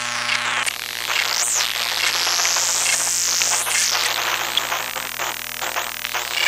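Electromagnetic motor noise from four circuit-bent, control-voltage-driven hard drives, picked up by induction coils. Dense ticking and crackle runs over steady low hum tones. A high thin whine comes in about a second in, and two rising-and-falling sweeps pass through the upper range.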